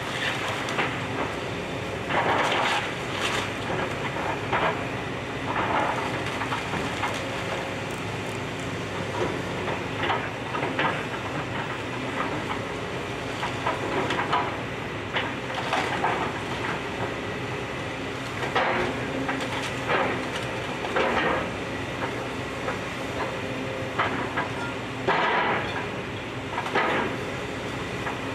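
Excavator diesel engine running steadily while its thumb bucket breaks apart and drags house debris, with irregular crunches and clatters of splintering wood and falling rubble every second or two.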